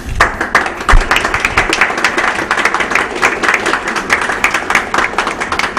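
A small group applauding, many hands clapping steadily and then stopping near the end.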